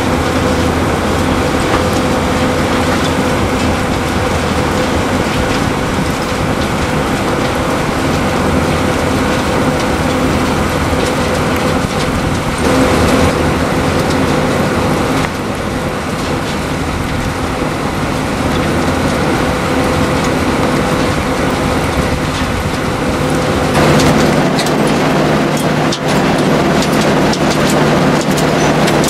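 Mobile flip flow screen plant running, with its engine and hydraulic drives giving a loud, steady machinery noise and a constant hum, while an excavator works alongside. About 24 seconds in, the hum changes to a different steady pitch.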